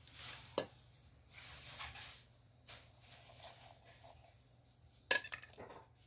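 A stainless-steel bowl and a metal tray clinking and scraping as chopped spring onions are tipped out onto flour, with brief rustling in between. The sharpest clinks come about five seconds in.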